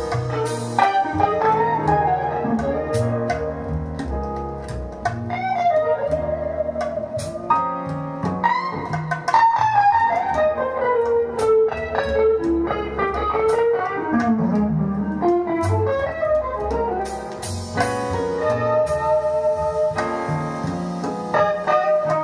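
Recorded song played back over a hi-fi system with a tube preamplifier: an instrumental passage with a gliding lead guitar line over a backing with regular beats.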